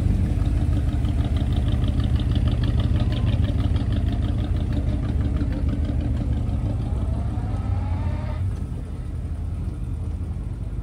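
A car engine running with a deep steady rumble, and a faint rising whine over it that stops about eight seconds in.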